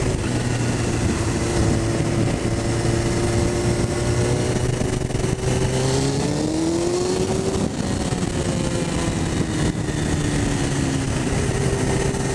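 Suzuki GSX-R 1000's inline-four engine running as the motorcycle rides along, under a steady wash of wind noise. About six seconds in, the engine note climbs as the rider opens the throttle, then eases back down over the next few seconds.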